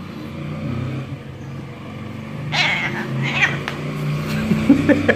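Domestic cat meowing twice, about two and a half and three and a half seconds in, over the steady low hum of a motor vehicle engine. Near the end a quick run of short, evenly spaced pulses starts.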